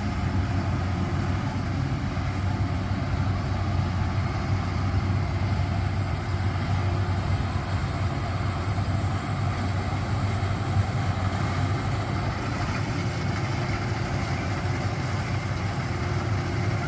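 Rice combine harvester running steadily, a constant low engine drone with the rattle and hiss of the machine working. A faint high tone comes and goes during the first ten seconds or so.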